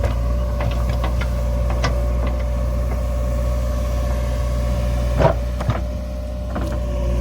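JCB backhoe loader's diesel engine running at a steady speed, with scattered clicks and knocks from the machine. One louder knock comes about five seconds in.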